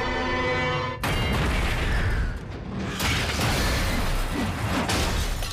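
Film explosion sound effects. A held orchestral chord cuts off suddenly about a second in and gives way to a loud rumbling blast with metal clatter, and a second sudden blast comes about three seconds in.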